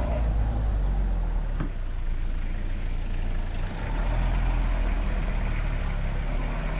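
Vehicle engine running with a steady low rumble while driving on the road, dipping briefly a little under four seconds in, with a light knock about one and a half seconds in.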